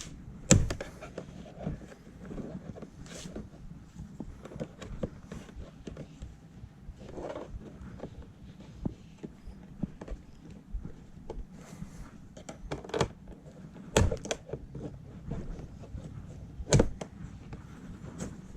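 Plastic door trim around a Ford Mustang S550's window switch bezel being pried and worked loose by hand: irregular clicks, taps and knocks, with three loud thumps, one shortly after the start, one about three-quarters through and one near the end.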